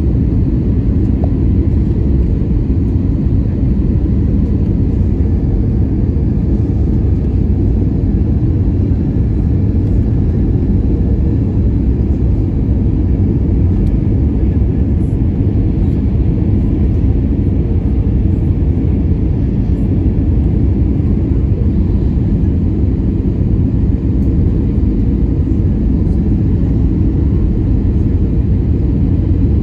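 Airbus A320 cabin noise on approach to landing: the steady, loud, low rumble of the CFM56 turbofan engines and rushing airflow, heard from a window seat beside the engine.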